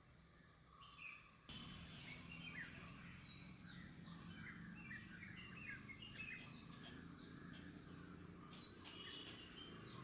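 Small birds chirping, many short quick call notes, over a steady high trilling of insects. A few sharp ticks stand out in the second half.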